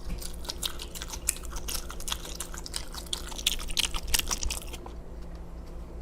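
A person chewing a mouthful of veggie pizza with wet, clicking mouth sounds, played up as ASMR. The chewing stops about five seconds in.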